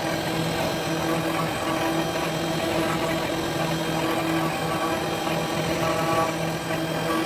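CNC router spindle running steadily with a whine while its carving bit cuts into wood, the tone dipping briefly every second or so.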